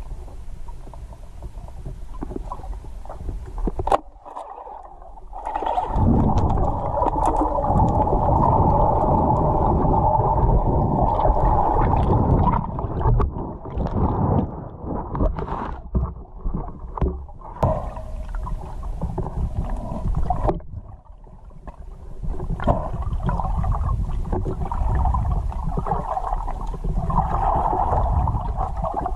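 Muffled underwater noise picked up by a camera in a waterproof housing: a low rumble with sloshing, gurgling water that swells and fades as the spearfisher swims, and a sharp knock about four seconds in.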